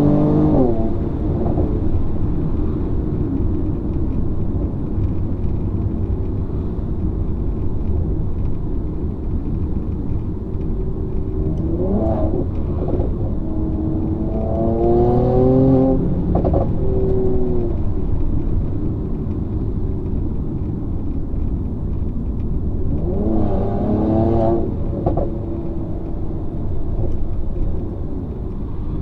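Mercedes-AMG C43's twin-turbo V6 with the AMG performance exhaust, heard from inside the cabin: a steady low drone while cruising, with three runs of hard acceleration where the engine note climbs in pitch through the gears, about twelve, fifteen and twenty-four seconds in.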